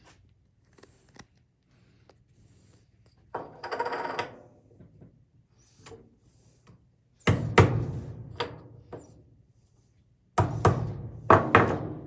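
Chisel being struck into an MDF disc to cut a recess for a bolt head: a brief scrape, then two clusters of sharp knocks a few seconds apart.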